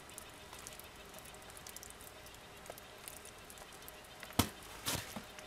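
Wet feathers being pulled by hand from a scalded chicken: faint soft tearing and squishing, with two sharper pulls or slaps close together near the end.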